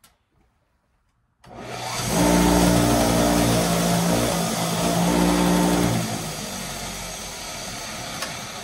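An electric shop tool's motor switched on about a second and a half in, running loud with a steady hum from about two to six seconds, then settling to a quieter steady whir. It is being run to clear rust off a wrench.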